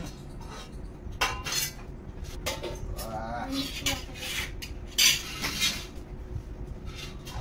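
Steel spoons clinking and scraping against stainless steel bowls and plates as chicken curry is served and eaten, several separate sharp clinks.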